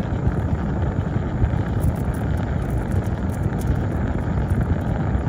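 Steady low rumble of a car running, without a break or change.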